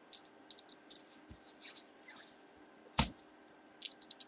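A pair of dice rattled in a hand with quick, light clicks, then thrown onto a table, landing with a sharp knock about three seconds in and clattering to a stop.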